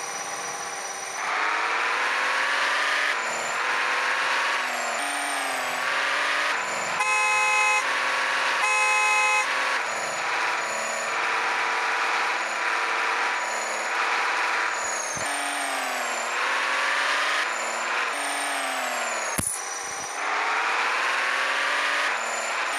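Electronic toy-vehicle sound effects: an engine revving up in rising whines again and again, with two steady horn honks about seven and nine seconds in.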